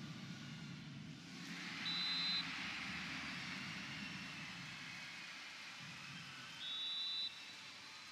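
Arena crowd cheering, swelling up about a second in as the winning point falls and then slowly dying down. Two short, shrill whistle blasts stand out above it, one about two seconds in and one near the end.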